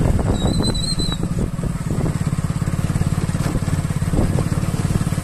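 Motorcycle engine running with a steady pulsing beat, and a brief high whistle about half a second in.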